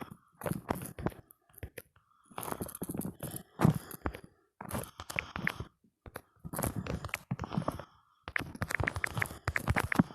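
Keyboard typing sounds: rapid clicking key taps in bursts of one to two seconds, with short pauses between bursts.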